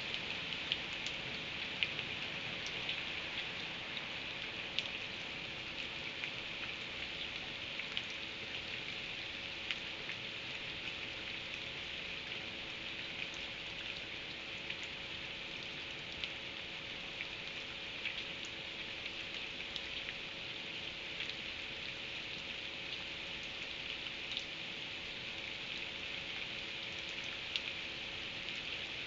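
Steady rain falling, a continuous hiss with scattered sharper drops ticking on a surface.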